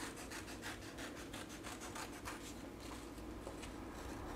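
Scissors snipping through coloured card in a quiet, steady run of short cuts, about three a second.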